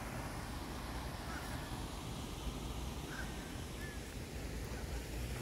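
Muscovy ducklings peeping: a few faint short chirps, about a second in and twice more a little past the middle, over a steady low rumble.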